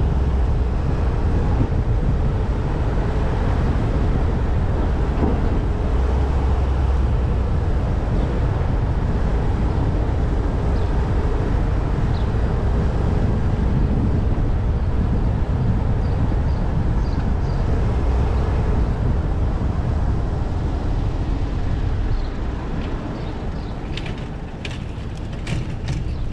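Steady low rumble of street traffic and road noise, with a few sharp clicks near the end.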